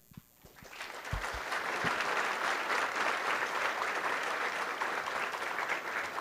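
Audience applauding after a talk. The clapping builds over the first second or two and then holds steady. A few dull low thumps come early on.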